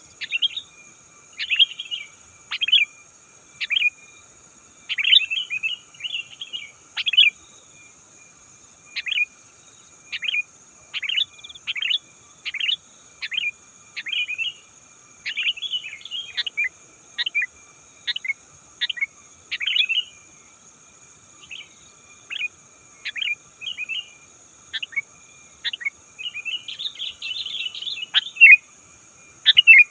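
Sooty-headed bulbul calling: short chirping notes and phrases, one to two a second, with a denser run of chatter near the end, over a faint steady high hiss.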